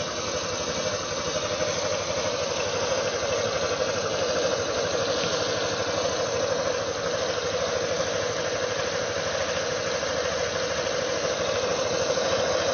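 Nikita 300 scooter engine idling cold with a fast, steady tapping knock: an abnormal noise that appears when the engine is cold.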